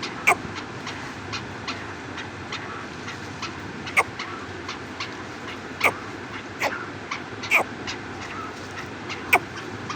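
Birds calling: a string of short, sharp calls at irregular intervals, about six louder ones among many fainter ones, over a steady background hiss.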